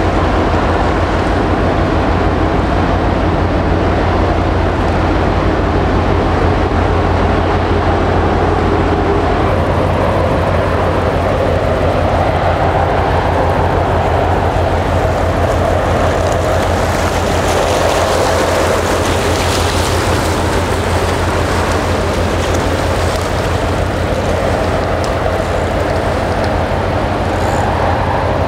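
Large ship's diesel engine running steadily as it passes, a constant low hum with a rushing noise over it that swells a little midway.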